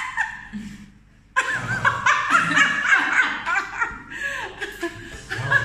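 A woman laughing. The laughter breaks out suddenly about a second and a half in and goes on in loud, rapid bursts for a few seconds.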